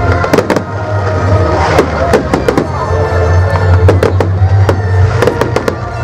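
Fireworks bursting in quick, irregular succession: many sharp cracks and bangs over music with a heavy low bass.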